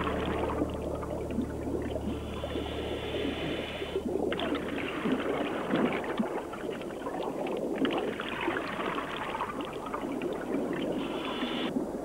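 Underwater scuba breathing: bubbling and gurgling of exhaled air from a diver's regulator, in surges every three to four seconds with short breaks between breaths. A low held music chord fades out about halfway through.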